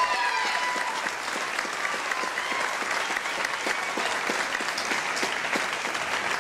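Audience applauding at the end of a dance performance, with a held sung note of the music fading out about a second in.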